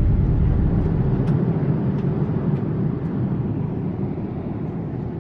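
Steady rushing rumble of a Boeing 787-8 in flight, engine and airflow noise heard from inside the cabin, growing gradually quieter.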